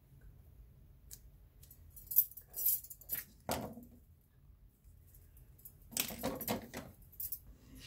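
Silver bangle bracelets clinking and jingling together as the arm moves, with paper and card being handled, in a few short bursts: one about two to three seconds in and a longer one around six seconds in.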